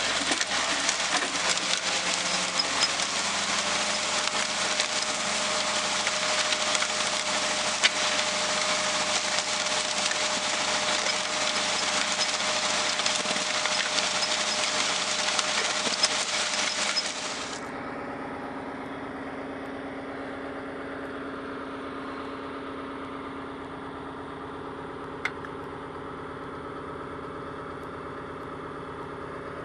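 A tractor engine runs under a loud, steady rushing noise. A little over halfway through, the rushing cuts off abruptly, leaving the engine idling steadily, with one short click later.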